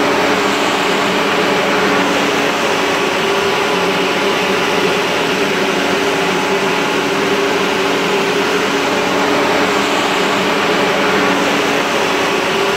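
Loud, steady engine-driven machine noise at a firefighting operation: a hum of several held tones under an even hiss, with no change in speed.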